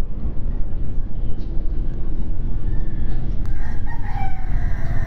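A rooster crowing once, a call of about a second and a half that starts about three and a half seconds in, over a steady low rumble.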